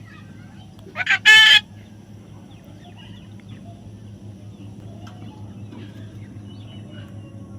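A parrot gives one loud, harsh squawk, in two quick parts about a second in, over a low steady hum.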